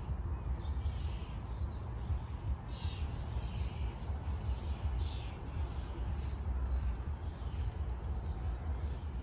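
Birds chirping: many short, high calls in quick succession over a steady low rumble.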